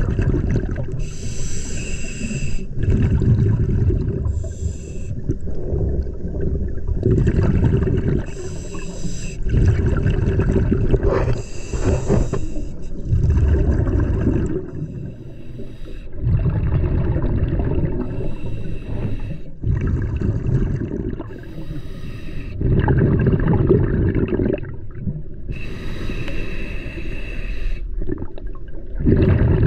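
Scuba diver breathing through a regulator underwater: a hiss on each inhale, then a low bubbling on each exhale, several breaths in an uneven rhythm of a few seconds each.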